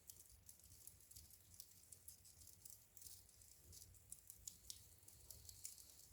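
Wood fire burning in a fireplace, crackling with frequent small, irregular pops and snaps over a faint low rumble.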